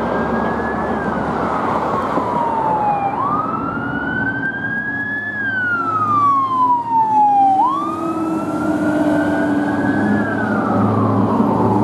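Fire engine siren wailing in slow rising and falling sweeps, each sweep several seconds long, over the truck's engine and tyre noise. The sound is loudest as the truck passes close, about six seconds in.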